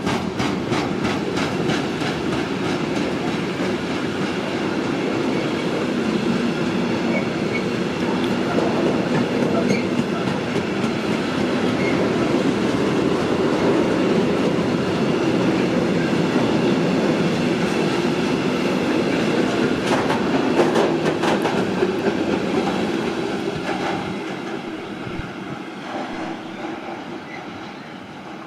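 A train running through the station, with a steady rush of wheels on rail and rapid clickety-clack over the rail joints. It fades away over the last few seconds as the train leaves.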